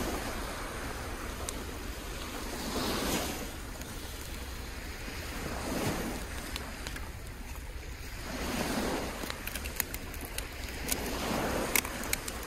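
Sea waves breaking and washing up on a sandy shore, swelling about every three seconds. A run of sharp clicks and cracks comes in over the last few seconds.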